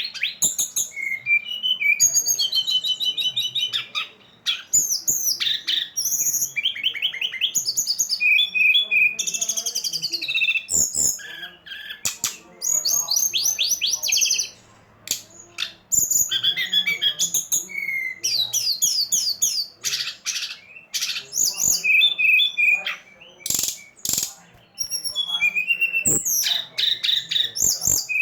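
A songbird singing a fast, varied song of sweeping chirps and trills in rapid phrases with short breaks. It is a 'pancingan' recording, the kind bird keepers play to prompt a caged songbird to sing.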